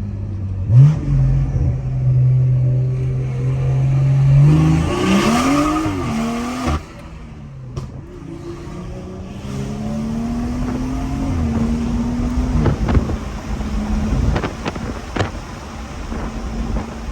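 Tuned BMW 440i's turbocharged B58 inline-six with a catless downpipe, driving under load. The revs swell and fall about five seconds in, then drop away suddenly and build slowly again, and several sharp pops come in the last few seconds.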